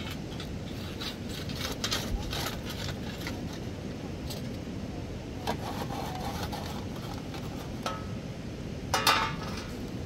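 Small clinks and knocks of cooking tools and firewood at an outdoor wood fire under a covered pot, with a sharper clatter about nine seconds in, over a steady low rush.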